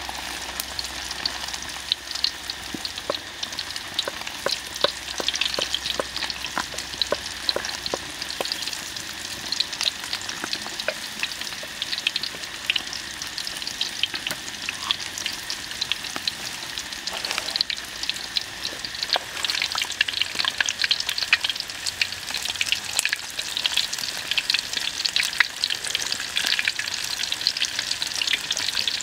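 Battered pork pieces deep-frying in hot oil in a wok: a steady sizzle full of sharp crackles and pops, growing busier over the second half.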